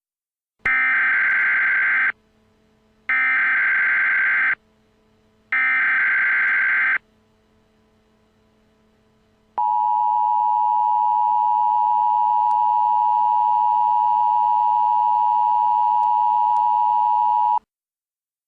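Emergency Alert System alert tones. First come three short bursts of the digital SAME header, each about a second and a half long, with brief gaps between them. After a pause, the two-tone EAS attention signal sounds steadily for about eight seconds, the signal that an emergency alert is about to be read.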